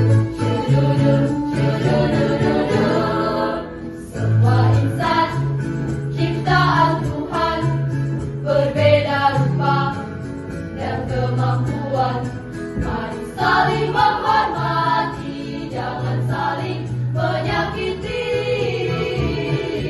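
Junior high school choir singing in parts over held low accompaniment notes.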